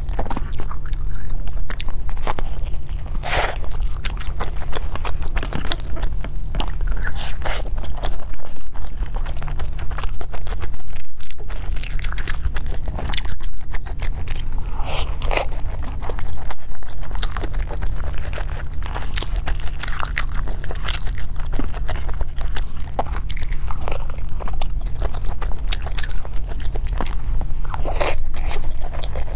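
Close-up eating sounds: biting and chewing soft steamed dumplings, with many short wet mouth clicks, and wooden chopsticks tapping and scraping a plastic takeaway box. A steady low hum runs underneath.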